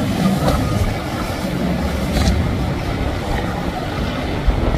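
Boat and jet-ski engines running steadily over choppy inlet water.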